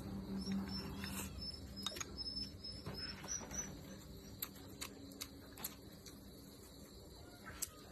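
Eating sounds: scattered light clicks of chopsticks and tableware, with chewing, while small birds chirp faintly in the background.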